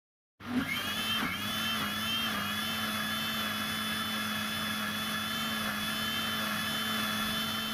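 Electric mixer-grinder (mixie) motor starting up about half a second in, its whine rising as it spins up, then running steadily as it blends muskmelon and milk into juice.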